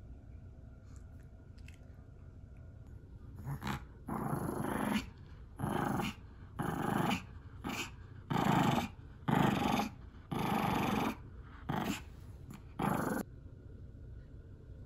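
Small dog play-growling in about ten short bursts while tugging a plush toy in tug-of-war, starting a few seconds in and stopping near the end.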